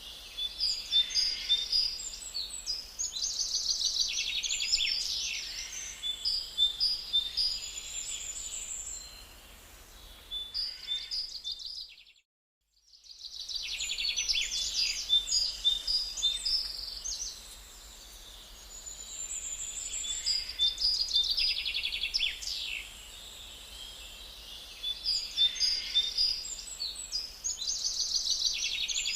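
Songbirds chirping and singing together, busy high chirps and trills coming in waves, broken by about a second of silence roughly twelve seconds in.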